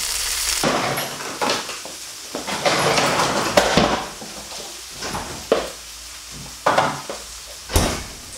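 Tofu sizzling in hot oil in a frying pan, stopping suddenly under a second in. Then kitchen clatter: dishes and utensils knocking against each other and the counter several times, loudest about three seconds in.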